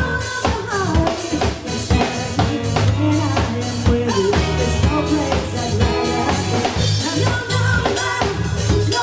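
Dance music with a steady drum-kit beat of kick and snare over a heavy bass line, with a melody moving above.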